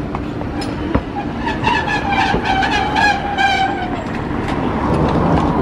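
Toei Arakawa Line 8900-series tram running close past with a steady low rumble. There is one sharp knock about a second in. A whining tone then sinks slightly in pitch from about a second and a half to four seconds in, over a run of light clicks.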